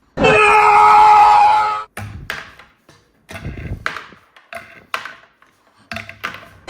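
An electronic toy's sound effect plays loudly for nearly two seconds, followed by a series of short clicks and knocks as the toys are handled.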